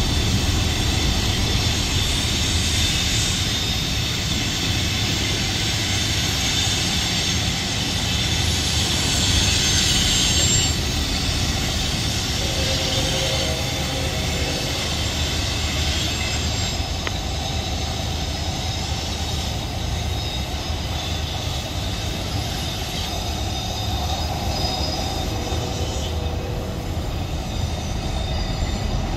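Freight train's tank cars and autorack cars rolling past, with a steady rumble and steel wheels squealing in thin high tones that come and go.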